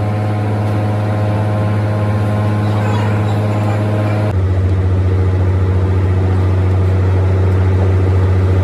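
Steady low hum of factory machinery in a battery plant, which shifts abruptly to a deeper, stronger hum about four seconds in.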